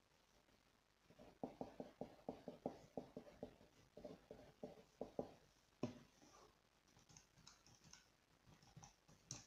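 Faint desk-work sounds: a quick, even run of light taps from a pen writing on paper on a wooden table for about four seconds, then one louder knock and a few faint clicks of calculator keys.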